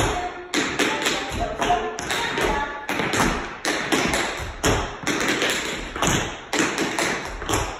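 Tap shoes striking a wooden floor in quick rhythmic clusters of sharp taps, several a second, as a tap step is danced.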